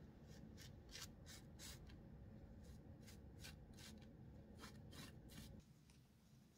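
Faint, short scratchy strokes of a small bristle brush worked along a zipper's fabric tape on a wooden board, about a dozen strokes in quick runs, stopping a little over five seconds in.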